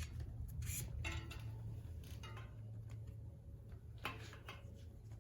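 Scattered light clicks and scrapes from a strap and plastic water bottle being handled in a bike-mounted bottle holder, over a steady low hum.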